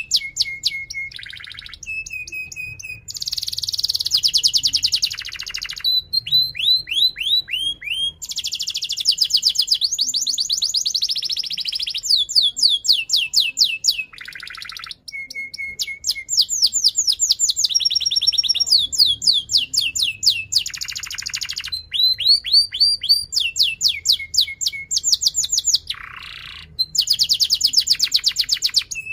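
Domestic canary singing a long song of tight rolls, rapid trills of quick repeated notes broken by falling sweeps and short chirps, with brief pauses between phrases.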